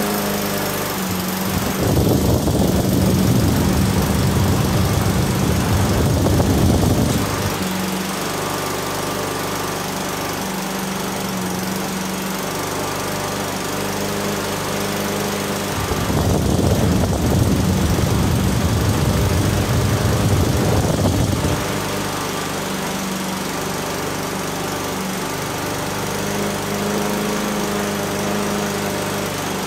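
Toro self-propelled lawn mower's 6.5 hp Tecumseh engine running steadily now that it starts. Twice it gets louder and rougher for about five seconds at a time.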